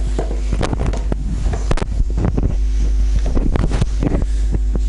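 Handling noise on the camera's microphone as the camera is moved: a loud low rumble with a run of irregular knocks and rubs, over a faint steady electrical hum.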